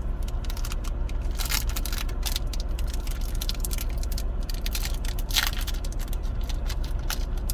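Foil booster-pack wrapper crinkling and tearing as a trading-card pack is opened, in irregular crackles, over a steady low hum.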